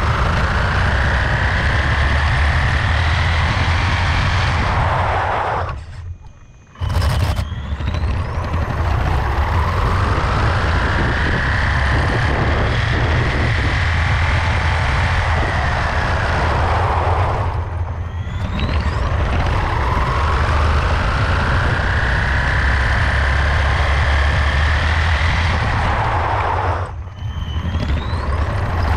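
3D-printed RC car's electric drivetrain whining as it speeds up and slows down, three times over, over a heavy rumble of tyres and wind on the road-level camera. The sound drops out briefly about six seconds in and again near the end.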